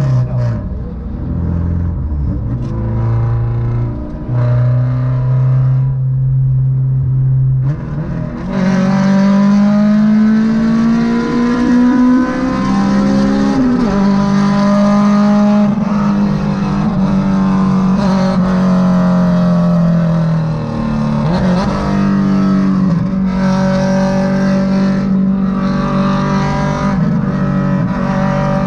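Honda Civic EK4's four-cylinder VTEC engine running hard at highway speed, heard from inside the cabin. About eight seconds in, the engine note jumps up in pitch and gets louder, then holds a higher, fairly steady note with small rises and dips.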